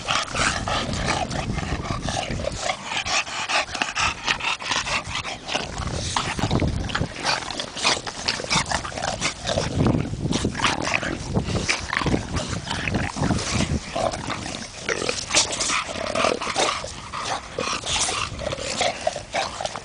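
English Bulldogs rolling on their backs in dry grass: crackly rustling and scraping of the grass, mixed with the dogs' own breathing and short vocal sounds.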